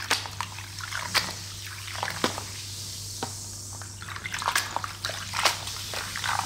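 Cola sloshing and fizzing as smartphones are shaken around submerged in it, with irregular sharp clicks and knocks throughout.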